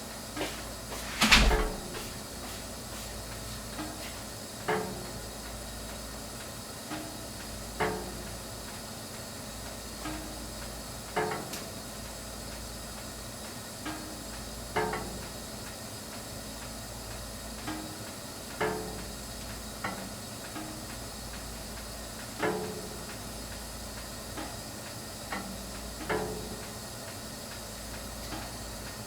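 Whirlpool gas water heater running with a steady hiss, and a short metallic knock with a brief ringing tail about every three and a half seconds, fainter knocks in between and one sharper one about a second in. This is the vibration noise heard when hot water is drawn, which the manufacturer traced to the burner sitting unbalanced.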